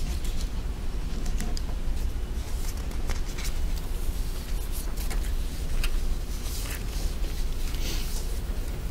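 Steady low rumble with many brief scratchy rustles scattered through it: a hand moving over sheets of paper.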